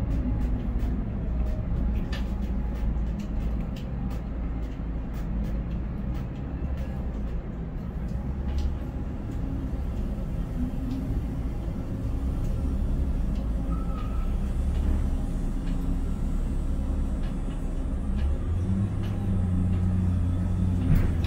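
Container crane's hoist and trolley drives running, heard inside the operator's cab: a steady low hum that steps up in pitch about ten seconds in and again near the end as the load is moved. Light ticks come through during the first half.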